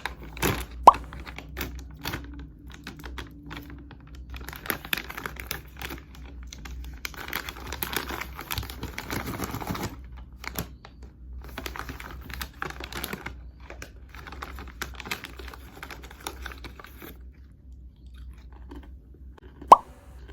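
Crunchy chewing with many small irregular clicks and taps, and a sharp pop about a second in and another near the end.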